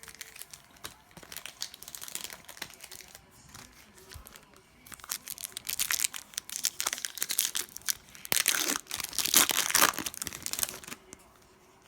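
Foil trading-card pack wrapper crinkling and tearing as it is opened and handled, with rapid crackles that grow louder in two spells in the second half and stop shortly before the end.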